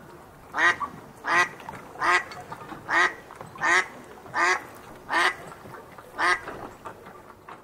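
A duck quacking loudly: a steady series of about eight quacks, roughly one every three-quarters of a second, with fainter calls behind them.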